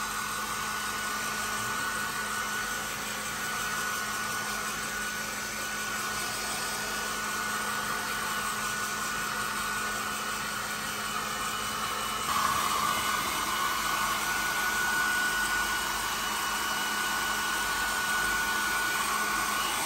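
Electric hair dryer running steadily, its motor whine holding one pitch over the rush of air; it gets a little louder about twelve seconds in.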